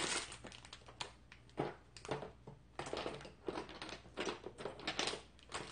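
Rummaging through a box of nail polish supplies: small bottles and containers clatter and rustle in irregular bursts as they are shifted around.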